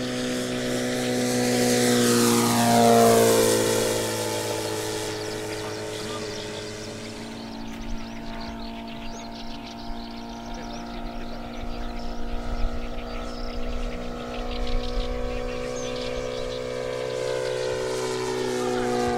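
Radio-control scale model Fairchild PT-26's engine running in flight. Its pitch drops as the plane passes close by about three seconds in, then it drones steadily as the plane climbs away. A rough low rumble with irregular knocks comes through the middle.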